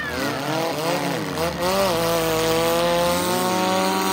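Demolition derby car's engine revving hard at high rpm as it spins its tires in a smoky burnout. Its pitch swoops down and up over the first two seconds, then holds high and steady.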